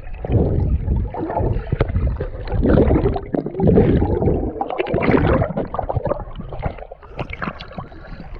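Water sloshing and splashing close to the microphone in an irregular, churning rush, as of someone swimming through it.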